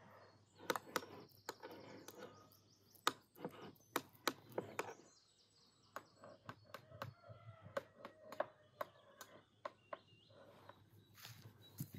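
Metal spoons tapping and scraping on porcelain plates as a soft food mixture is spread and smoothed, a string of irregular sharp clinks. Small birds chirp faintly in the background.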